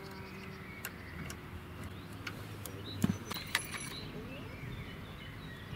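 Small metal clicks and clinks of a tow bar's fittings and locking pin being handled and fitted to a car's front mounting brackets, with two sharper metallic knocks about three seconds in, half a second apart. A steady low hum runs underneath.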